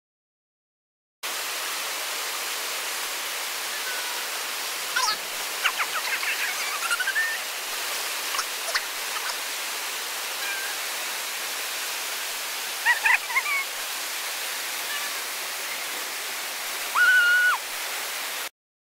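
Steady rush of whitewater in a river rapid, with a few brief high-pitched calls over it, the loudest a held tone lasting about half a second near the end.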